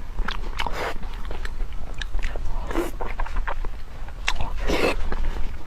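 Close-miked eating sounds of a person chewing soft pig brain in chili oil: irregular wet mouth clicks and smacks, with a few longer, louder wet sounds.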